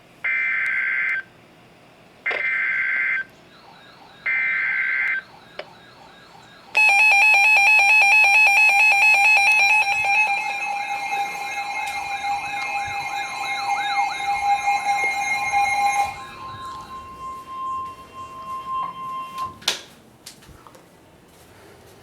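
Emergency Alert System broadcast opening: three one-second bursts of data tones (the SAME header), then about seven seconds in a loud steady alert tone that lasts about nine seconds and gives way to a weaker steady tone, with a faint warbling tone underneath.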